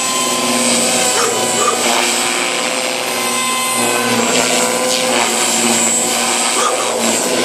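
Electric JR Forza 450 RC helicopter in flight, its 3,500 kV motor and spinning rotors giving a steady whine whose pitch shifts slightly as it manoeuvres.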